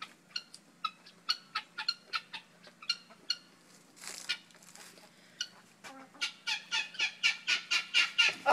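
Chickens clucking in short repeated clucks. In the last couple of seconds the clucking speeds up to about four a second and grows louder.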